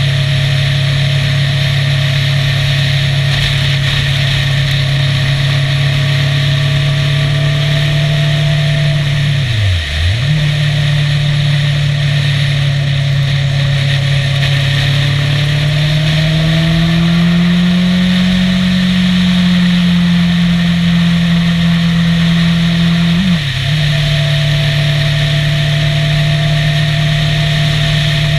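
Motorcycle engine running at a steady cruising speed, with wind and road noise rushing past. About ten seconds in, the engine note dips briefly and recovers. Later it climbs as the bike speeds up, holds, and then drops back abruptly a few seconds before the end.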